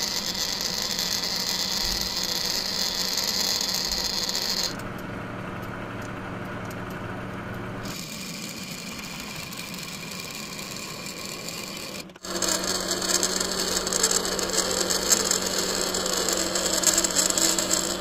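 Manual lathe running with a steady hum while a single-point tool cuts threads into a brass bolt. The sound changes abruptly about five, eight and twelve seconds in, and is loudest and scratchiest in the last part.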